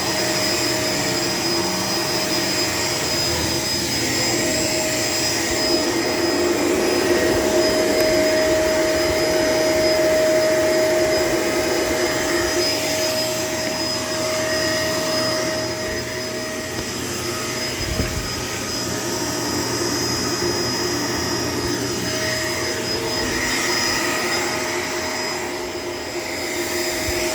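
Vacuum cleaner running steadily, its motor noise carrying steady whining tones and rising and falling slightly in level as it is pushed. There is one brief knock about two-thirds of the way through.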